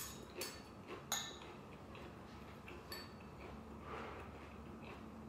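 Eating utensils clinking against a bowl a few times, the loudest clink about a second in, each with a short ringing tone, then quieter small sounds of eating.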